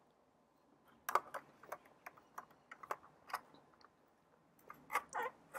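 Chewing a mouthful of salad: irregular crisp crunches and mouth clicks, with a louder cluster near the end.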